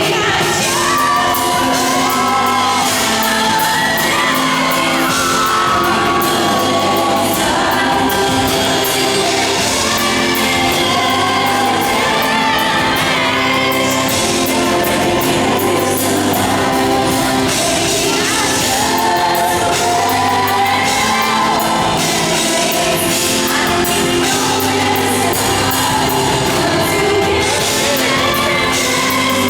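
A female pop singer singing a slow ballad live over its backing music, amplified and heard in a large theatre hall.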